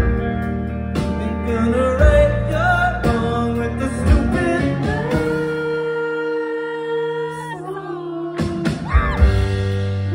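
Live rock band playing: electric guitars and drums with a singing voice. About halfway through, the drums and low end drop out, leaving long held notes, before the full band comes back in near the end.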